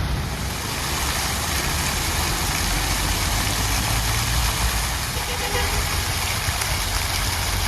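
A motor engine running steadily, a low hum under an even wash of noise.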